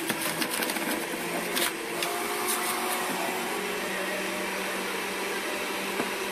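Electric juicer running, its motor whirring steadily as celery stalks and Chinese cabbage are pushed down onto the spinning cutter. There is crackly shredding in the first couple of seconds, and it settles to a smoother steady run after about three seconds.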